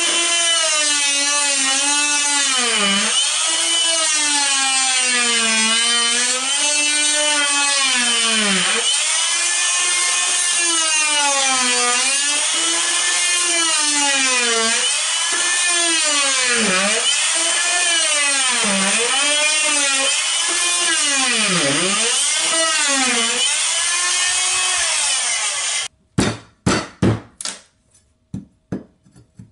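Corded jigsaw running as it cuts through a plywood subfloor, its motor whine dipping and recovering every second or two as the blade loads up in the wood. Near the end the saw stops suddenly and a run of sharp knocks follows.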